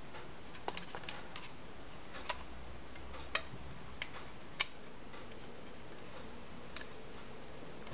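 Small plastic parts clicking and tapping against each other as a plastic camera mount is handled and fitted onto a micro quadcopter frame. The clicks are sharp, short and irregular, about eight of them, with the loudest a little past the middle.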